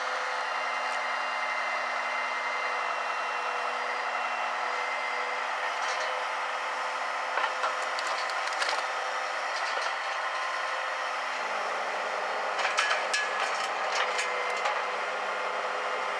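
Diesel engine of a Kenworth C500 self-loading log truck running steadily, its pitch dropping a little about eleven seconds in. Wooden knocks and scrapes of logs come now and then, with a cluster of them a few seconds before the end.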